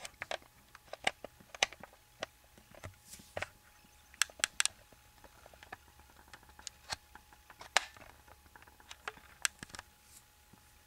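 Albino boa constrictor swallowing a weaned rat: irregular soft clicks and crackles, several a second in clusters, as its jaws work over the prey.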